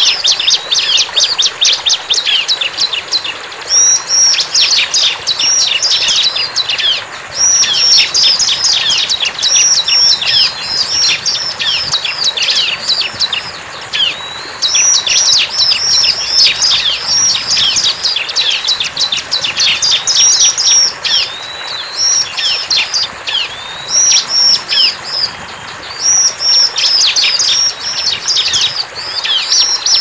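Bar-winged prinia (ciblek) singing vigorously: a rapid, high-pitched run of sharp chirps and repeated downward-curving notes in quick phrases, broken by short pauses.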